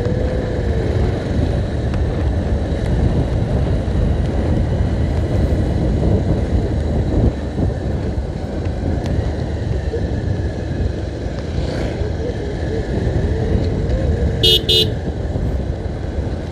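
Steady engine and road rumble from inside a moving vehicle, with two quick horn beeps near the end.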